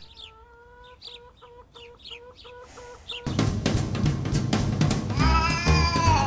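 Faint birdsong and a thin tone that breaks into quick pulses. About three seconds in, a loud music ident with a drum kit cuts in.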